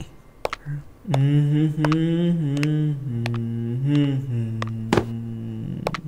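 A low voice humming a long contented "mmm" for about four and a half seconds, its pitch wavering slowly up and down, with a few soft clicks over it.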